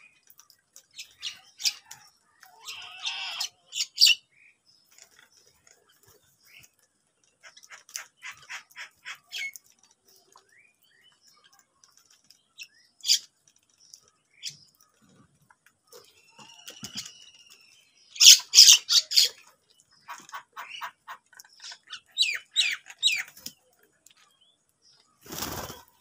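House crows calling in short scattered caws and runs of harsh calls as they squabble over food, loudest in a quick series of caws about two-thirds of the way through. Near the end comes a burst of wingbeats as several crows take off.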